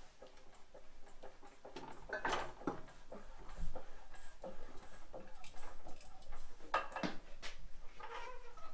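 Irregular light knocks and clinks of metal parts being handled, a few of them ringing briefly, as the heavy lathe chuck and its cart and track are worked by hand.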